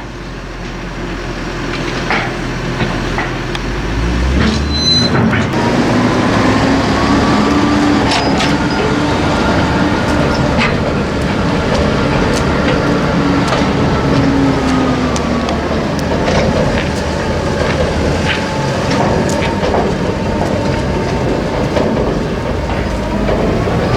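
A vehicle engine running steadily under way, its note slowly rising and falling with speed, with occasional knocks and rattles over a constant running noise.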